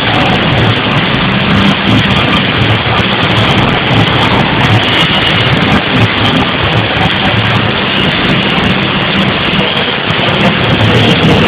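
Loud dance music over a club sound system, with a pulsing heavy bass, recorded distorted and muffled through a phone microphone.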